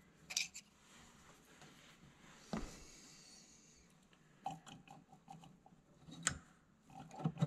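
Scattered light metal clicks and taps from hands and a small screwdriver working a carburetor's throttle linkage, with a duller knock about two and a half seconds in and a run of small ringing clinks a little after halfway.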